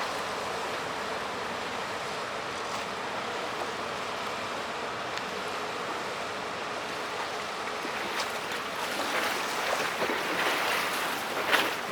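Steady rushing water noise, then from about two-thirds of the way in an irregular splashing and lapping that grows louder towards the end: wake from a passing inland tanker washing against the canal bank.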